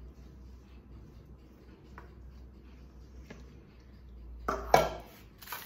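A silicone spatula scraping cake batter out of a stainless steel mixing bowl, soft and quiet at first, then a few loud knocks and clinks of the spatula against the metal bowl near the end. A low steady hum sits underneath.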